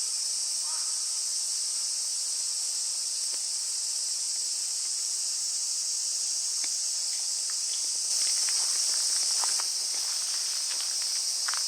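Steady, high-pitched chorus of insects, with a crow cawing once about a second in and footsteps on a path in the last few seconds.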